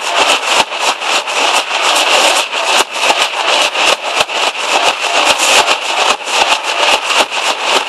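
Nashik dhol troupe drumming together: many large two-headed dhols beaten in a loud, fast, dense rhythm without a break.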